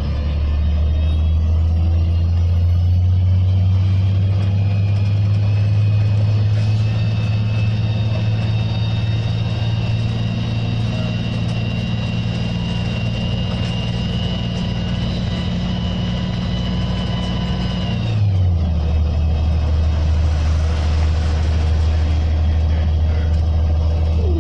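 Transit bus's Cummins C8.3G natural-gas engine and Voith automatic transmission running, a 2005 Orion VII CNG: a steady low drone with a thin high whine that climbs slightly. About 18 seconds in the drone drops in pitch and the whine cuts off.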